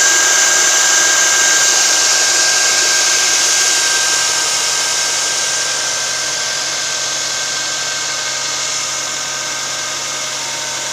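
Steady mechanical running noise: an even hiss with a faint steady whine, easing off slightly over the second half.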